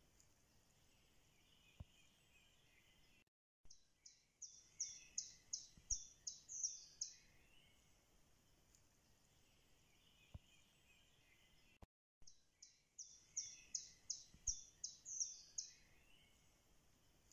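A songbird singing, faint: twice, a high phrase of about eight to ten quick downward-sweeping notes lasting about three seconds, with softer chirping from other birds behind. Each phrase follows a brief cut to silence, as in a looped nature recording.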